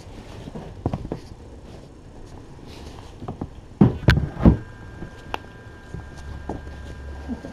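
Scattered light knocks and clicks, then heavy thumps and rubbing about four seconds in as a person's trouser leg brushes against the camera. A faint steady whine follows.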